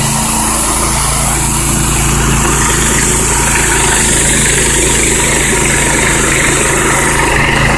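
Pressure washer's gas engine running steadily, with the constant hiss of high-pressure water from a rotary surface cleaner scrubbing a driveway.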